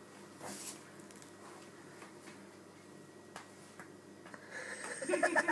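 Faint, scattered taps of a small dog's boots on a tiled floor as it takes stiff, awkward steps. A person's voice starts near the end.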